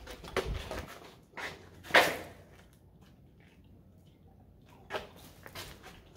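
A few scattered knocks and scuffs, the loudest a sharp knock about two seconds in, with a quiet stretch after it until another knock near the end.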